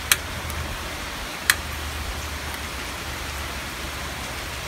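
Heavy rain falling steadily, with two sharp clicks, one at the very start and one about a second and a half in.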